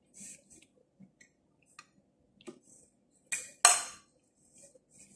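Small handling sounds of rolling stuffed grape leaves by hand: soft rustles and light clicks as rice filling is taken from a glass bowl. Two sharp knocks close together about three and a half seconds in are the loudest sounds.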